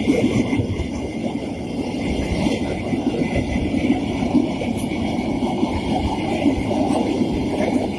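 Train rolling past on the rails: a loud, steady rumble of wheels and wagons that keeps on without a break.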